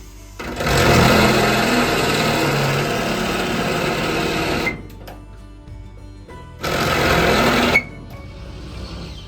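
Power tool boring into the steel of a shipping container, run in two bursts: a long one of about four seconds and a short one of about a second near the end, each cutting off suddenly. Background music plays between the bursts.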